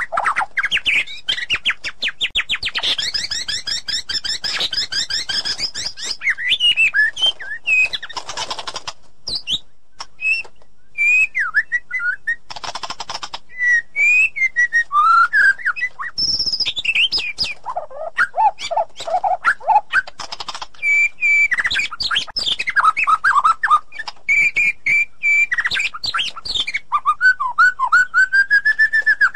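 White-rumped shama singing a long, varied song: clear whistles and gliding notes, a fast rattling trill early on, short harsh buzzy bursts, and a run of lower whistles past the middle.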